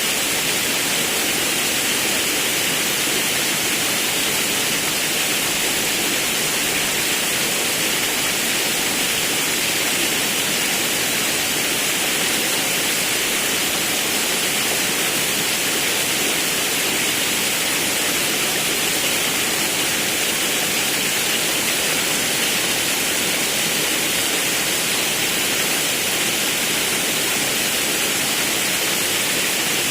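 Forest river rushing over a waterfall: a steady, even splashing roar of falling water.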